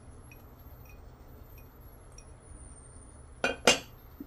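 Two sharp clinks near the end as a small ceramic bowl is set down on a dish, over a faint steady hum.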